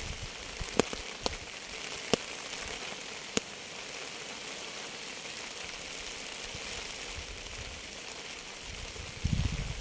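Steady rain falling, with four sharp, loud drop hits close by in the first few seconds. A brief low rumble comes in near the end.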